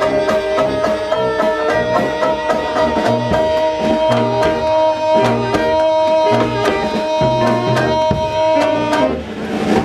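Small live trad-jazz band of banjo, saxophone, tuba and drum kit playing, with a long held note over a pulsing tuba bass line and steady drum beats. The music stops about nine seconds in.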